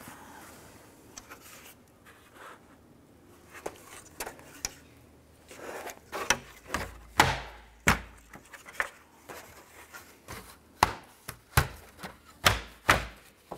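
Hard plastic grille parts of a Honda Pilot being handled and shifted on a bench: faint handling noises at first, then from about six seconds in a string of sharp plastic knocks and clicks, some with a dull thud.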